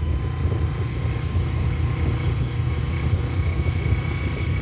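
Honda 125 motorcycle running while being ridden, its single-cylinder engine drone mixed with heavy wind buffeting on the microphone.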